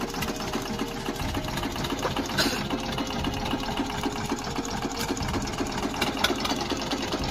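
Boat engine idling with a fast, steady pulsing, and a single brief knock a little before the middle.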